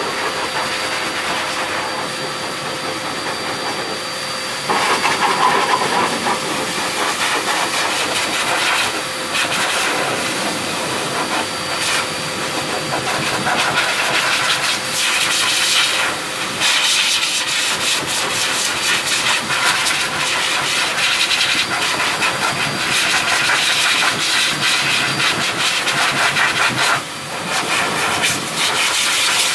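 High-velocity dog dryer (water blower) running: a continuous rush of air with a faint steady motor whine. The rush gets louder and brighter about five seconds in, then keeps swelling and easing, with a short dip near the end.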